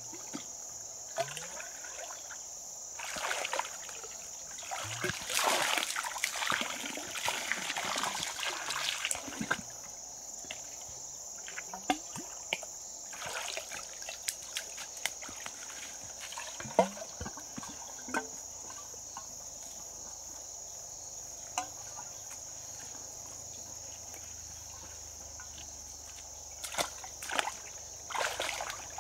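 Shallow water sloshing and splashing in irregular bouts, busiest a few seconds in and again near the end, over a steady high-pitched whine.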